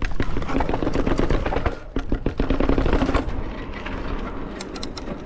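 Mountain bike rattling over rough ground: a rapid run of knocks and clatter over a low rumble, easing off about three seconds in.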